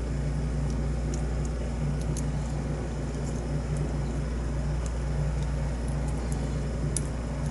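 Steady low background hum, with a few faint light clicks of small metal lock parts being handled as a padlock's core retaining pin is pressed.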